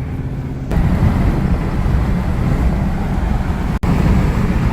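Ford Crown Victoria Police Interceptor's 4.6-litre V8 running at highway speed with no transmission fluid and a misfire, heard from inside the cabin. A steady engine drone with road and wind noise gets suddenly louder and rougher under a second in, with a brief cut-out near the end.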